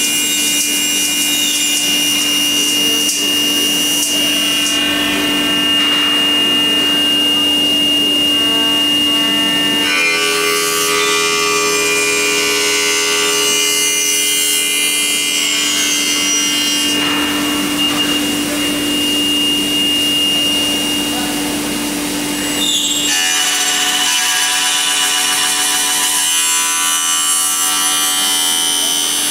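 Spindle of a Promax Falcon CNC aluminium-profile machining centre running with a steady whine while its disc cutter mills a 45-degree notch into an aluminium profile. The cutting noise changes about 10, 17 and 23 seconds in as one pass gives way to the next.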